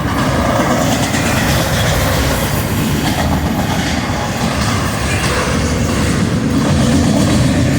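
Freight train's double-stack container cars rolling past at close range: a loud, steady rumble of steel wheels on the rails.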